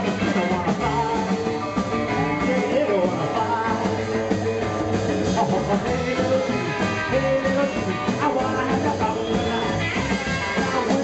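Live rock and roll band playing: a man singing lead over acoustic guitar, upright bass and a drum kit.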